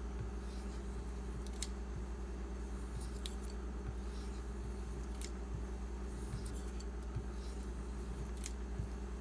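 Knife blade drawn in repeated light strokes across a leather strop loaded with 0.25 micron diamond paste, giving faint scraping swishes over a steady low hum.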